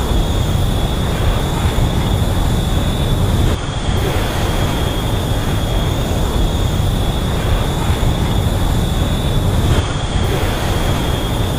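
Steady jet engine roar with a strong low rumble and a thin high whine held over it, dipping briefly twice, about four and ten seconds in.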